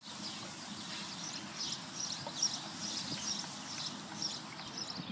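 Small smoke bomb hissing steadily as it burns out, the hiss stopping near the end, with birds chirping.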